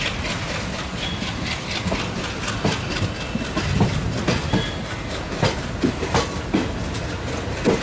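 Wheels of a moving passenger train clattering over rail joints: an uneven run of sharp clicks and knocks over a steady rumble.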